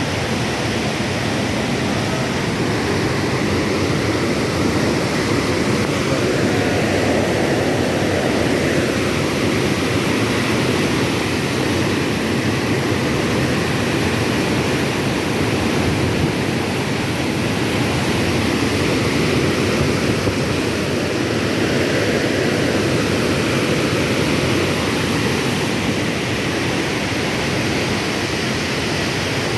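Water pouring out through a dam, a loud steady rush that stays even throughout.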